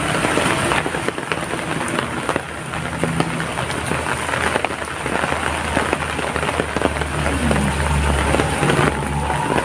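Heavy rain falling steadily, a dense hiss with many sharp drop ticks. A low hum grows stronger in the second half.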